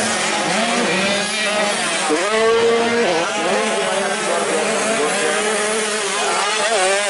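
Motocross bike engines revving hard as the bikes race over the dirt track. Several engine notes overlap and their pitch keeps rising and falling with the throttle.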